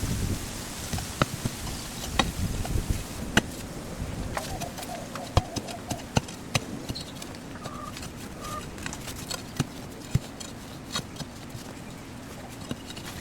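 Irregular sharp clicks and knocks, heavier in the first few seconds, with two short bird calls in the middle.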